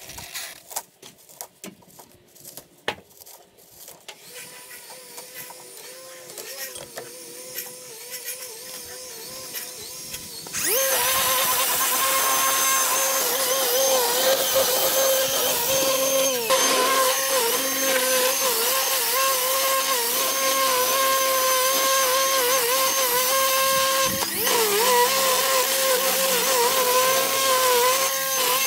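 The electric motor of a piece of electric lawn equipment whining. It is faint, with a few clicks, for the first ten seconds, then suddenly much louder as a steady high whine whose pitch dips briefly a few times.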